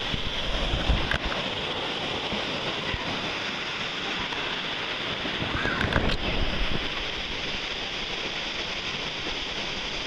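Waterfall pouring down a rock face into a plunge pool, a steady rushing of falling water.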